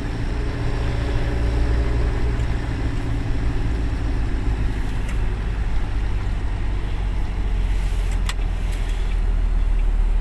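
Truck engine and tyre noise heard inside the cab while driving at about 45–50 km/h on an uncleared, snowy road: a steady low drone, with a sharp click about eight seconds in.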